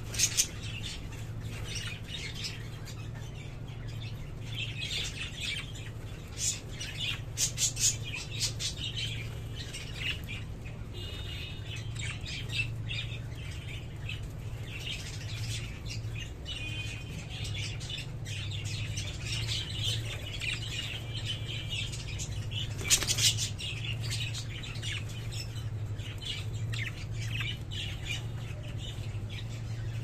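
Pet budgerigars chattering in quick high chirps and warbles, over a steady low hum. Sharp short noises stand out around a quarter of the way in and, loudest, about three-quarters through.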